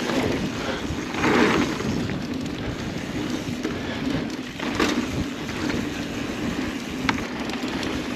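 A mountain bike rolling fast over a dusty dirt trail: a steady rush of tyre noise that swells about a second in, with a couple of sharp clacks from the bike over bumps near five and seven seconds.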